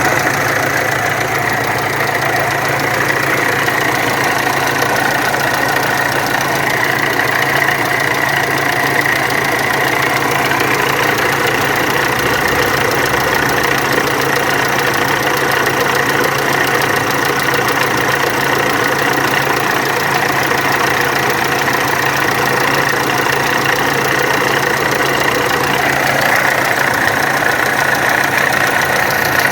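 Volkswagen Amarok turbo-diesel engine idling with an abnormal mechanical noise in the engine. The engine keeps running steadily, and its note shifts slightly near the end.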